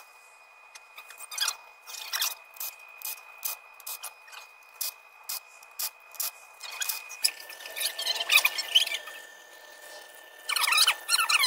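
Ratchet wrench clicking at a steady pace, about two to three clicks a second, as the bolts holding the transmission valve body are backed out. Louder, denser metallic scraping and rattling comes in bursts in the second half.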